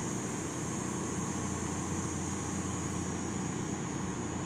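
Steady background drone and hiss with a low hum, unchanging throughout, with no speech over it.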